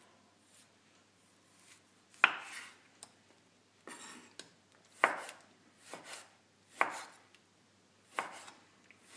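Kitchen knife slicing through a peeled orange and knocking down onto a wooden end-grain cutting board: about four sharp knocks a second or two apart, with a few fainter taps between.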